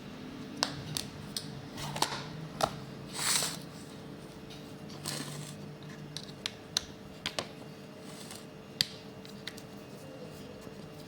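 Small metal parts of a car door lock cylinder being handled: scattered light clicks and taps, with a short scraping rush about three seconds in.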